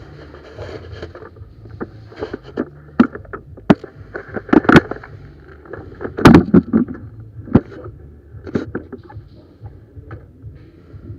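A run of irregular sharp clicks and knocks, loudest in two clusters a little before and after the middle, over a steady low wind rumble on the microphone.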